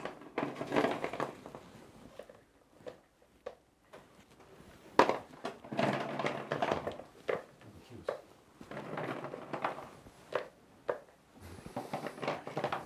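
Small, dry firework stars clicking and rattling as they are scooped by hand from buckets and set into the paper half-shell of a 12-inch shakudama firework shell, in several bursts of handling noise with a sharp knock about five seconds in.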